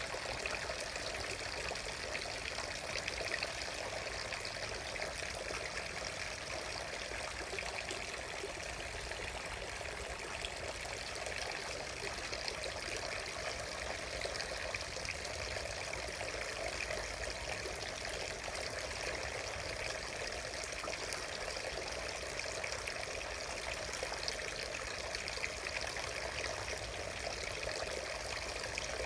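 Water running steadily from the bronze spout of a stone shrine purification basin (temizuya) into the full basin and spilling over its rim in thin streams.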